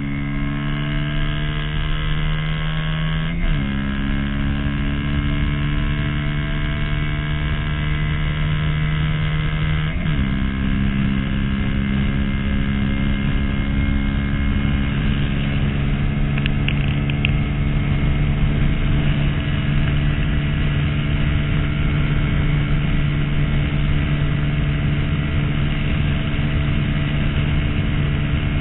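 2011 Honda CBR250R's single-cylinder engine under full-throttle acceleration, its pitch climbing through a gear, dropping at upshifts about three and ten seconds in, then holding a high, nearly steady drone in top gear that creeps up only slightly as the bike runs out of steam near its top speed.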